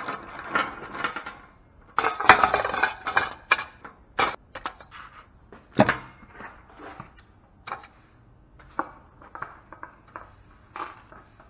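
Small pieces of scrap metal and electrical parts clattering and clinking as they are handled and tossed aside. A dense rattling clatter comes about two seconds in, followed by scattered single clinks and knocks.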